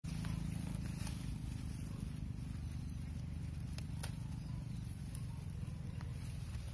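Grass and watermelon vines rustling, with a few brief crackles and clicks, as hands part the leaves and handle a young watermelon on the vine. Under it runs a steady low hum.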